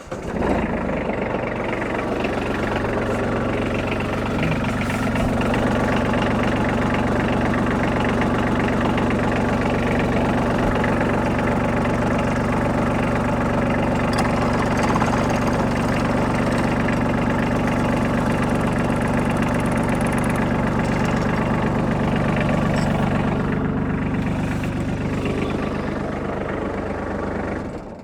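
Kubota B2620 compact tractor's three-cylinder diesel engine running steadily at idle while still cold. It comes in suddenly at the start and dies away near the end.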